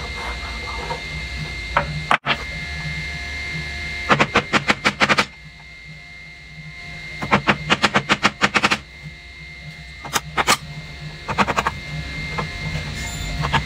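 Steel chisel being hammered into a hardwood block to chop a mortise: bursts of quick, sharp hammer strikes, several a second, with short pauses between them, over a steady low hum.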